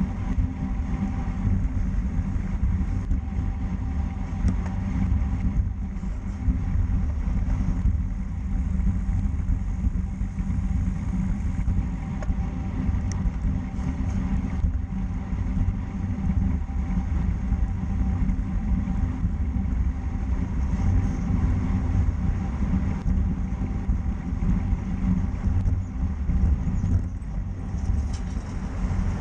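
Steady wind rumble on the microphone with road noise from a moving road bike, running without a break.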